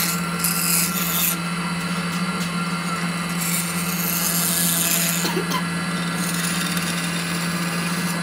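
A flat file held against a metal workpiece spinning in a metal lathe, rasping in uneven strokes that swell and fade over the lathe's steady motor hum.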